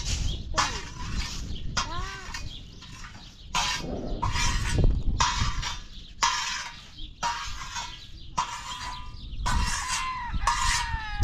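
Metal spatula scraping wheat grains across a hot iron griddle, about one stroke a second, the grain rattling as it is pushed and scooped while it roasts. A few short bird calls come in between the strokes.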